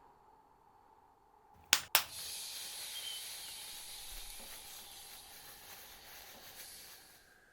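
Two sharp clicks in quick succession, then a long hiss that slowly fades away over about five seconds.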